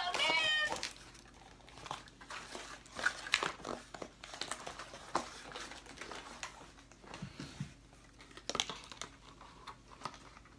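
Cardboard and plastic toy packaging crinkling and rustling in the hands, with scattered small clicks and taps, as a toy figure is unwrapped. A short wavering pitched sound is heard right at the start, louder than the handling that follows.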